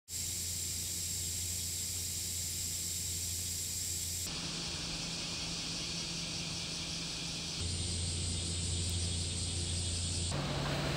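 Steady background hiss with a low hum, changing abruptly in character about four seconds in, again near eight seconds and again near ten seconds.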